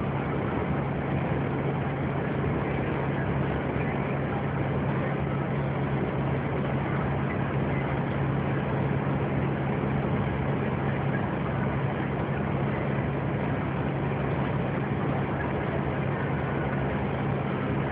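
Steady engine hum and road noise heard inside a vehicle's cab cruising at a constant speed, with no change in pitch or level.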